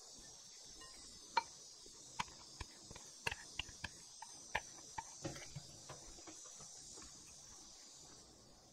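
A plastic rice paddle tapping and scraping against a glass mixing bowl as cooked rice is stirred and mixed, in a run of about fifteen irregular sharp clicks, the first the loudest, over a faint steady hiss.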